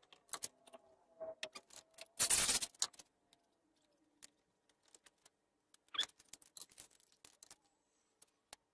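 Scattered light clicks and knocks from handling a wooden seat board on top of a ladder, with a short noisy rush about two seconds in and a sharper knock near six seconds.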